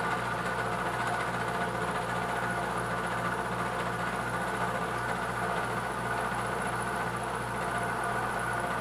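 Milling machine running steadily while its 7/8-inch end mill takes a light climb-milling finish cut, about five thousandths deep, along the side of a metal block, with a constant motor hum.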